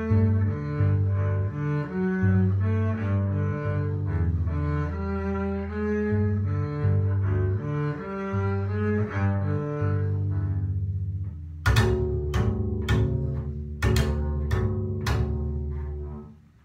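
Solo double bass played with the bow: a run of sustained low bowed notes. About two-thirds of the way through, the playing changes to a series of six or seven sharp, percussive struck notes, which fade away near the end.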